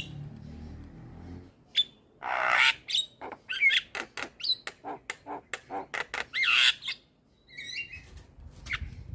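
Javan myna singing: after a quiet low hum, a harsh squawk, then a fast run of clicks and warbling whistled notes, broken by a short pause near the end.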